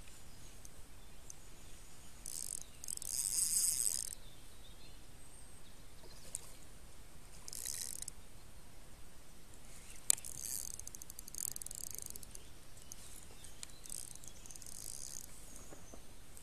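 An insect stridulating in short bursts of high-pitched buzzing a few seconds apart, the longest and loudest a few seconds in; a single sharp click about ten seconds in.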